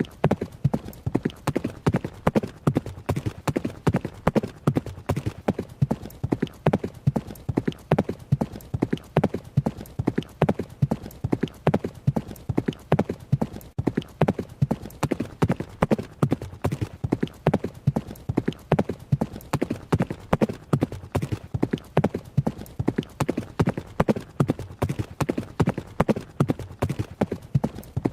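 Horse hoofbeats of a running horse, a fast, steady run of sharp hoof strikes in an even rhythm that does not change.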